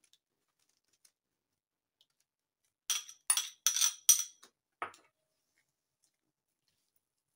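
A spoon clinking and scraping against a small glass bowl as yogurt is scraped out of it: about five quick, ringing clinks between three and five seconds in.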